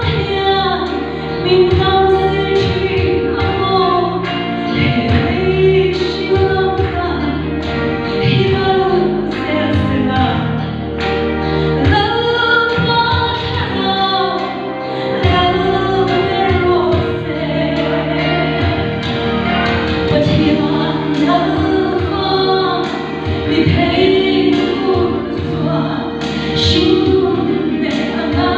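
A woman singing a Mizo gospel song live into a microphone over instrumental accompaniment with a steady beat.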